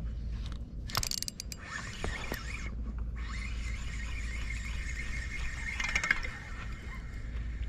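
Spinning reel being cranked to retrieve line, a steady whir from its gears that breaks off briefly and resumes. A sharp click about a second in.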